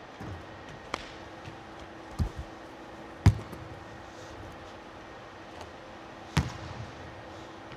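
A basketball bouncing on a hardwood gym floor: dull thumps about a second apart, the loudest about three seconds in, and another a little after six seconds, over a faint steady hum.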